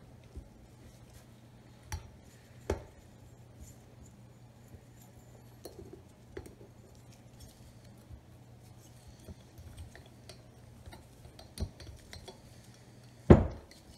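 Metal engine parts clinking and knocking as a small dirt-bike engine's cylinder and crankcase are handled and turned over on a wooden workbench, with scattered light clicks and one heavier knock near the end.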